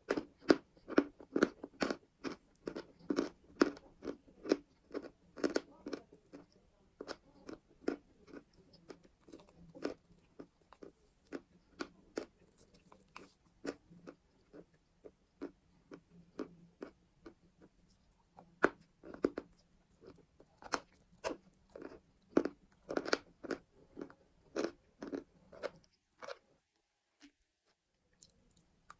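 Close-up chewing of crunchy chalk: a quick run of crisp crunches, about two or three a second, stopping a few seconds before the end.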